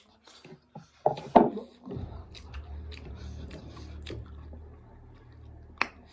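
Close-up eating sounds of someone chewing noodles: scattered short mouth clicks and chewing noises, with a louder burst about a second in and a steady low hum starting about two seconds in.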